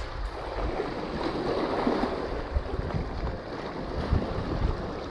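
Small sea waves washing and splashing over shoreline rocks, with gusty wind buffeting the microphone.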